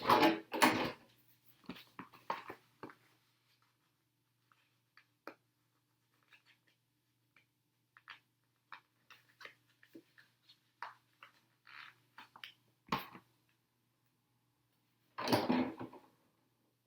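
Hands working a sticker onto a plastic RC truck body: scattered small taps, clicks and rustles, with a sharp knock about 13 seconds in and a louder rustle near the end.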